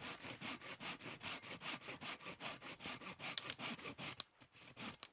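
Hand saw cutting firewood in quick, even back-and-forth strokes, about four or five a second, stopping about four seconds in.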